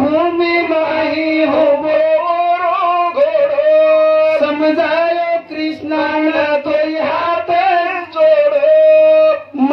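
A man singing a Banjara devotional bhajan in a high voice through a microphone, in bending, ornamented lines with two long held notes, about four and nine seconds in.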